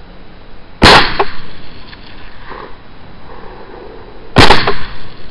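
Two rifle shots about three and a half seconds apart, each a sharp crack with a short trailing echo.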